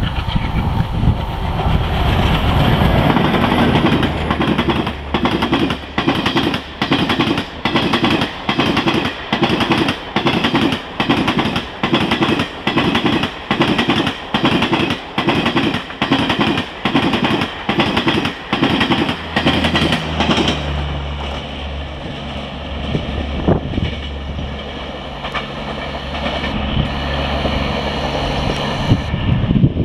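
Express train coaches rushing past at speed, a loud rush of wheels on track that dips regularly as each gap between coaches goes by, a little more than once a second. After about twenty seconds the train has gone past and the rhythm stops, leaving a steadier, quieter rumble.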